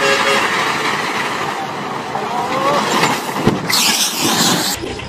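Heavy tanker truck rolling over in a crash: vehicle noise and bystanders' voices, a sharp thud about three and a half seconds in as it goes over, then about a second of loud rushing noise that cuts off suddenly.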